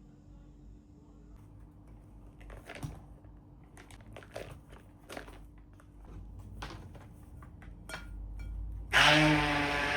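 Scattered light clicks and knocks of kitchen utensils being handled, then about nine seconds in a small electric kitchen appliance motor switches on and runs loudly and steadily.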